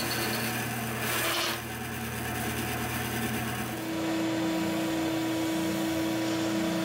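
Bandsaw running, with a short burst of cutting into plywood about a second in; then, about four seconds in, an oscillating spindle sander takes over, sanding the curved edge of a plywood handle with a steady hum and a pulsing undertone.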